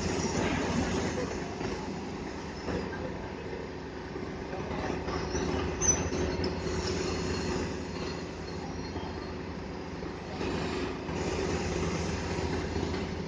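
Truck crane's diesel engine running steadily with a low rumble and a steady drone, with brief high metallic squeals, the sharpest about six seconds in.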